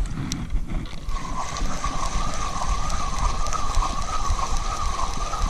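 Spinning reel being cranked to retrieve a feeder rig, its gears giving a steady whine that rises and falls with each turn of the handle, starting about a second in.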